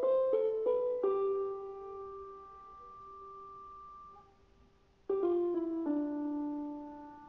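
Background piano music: a phrase of a few quick notes ending in a held note that fades away, a pause of about a second, then a second phrase about five seconds in.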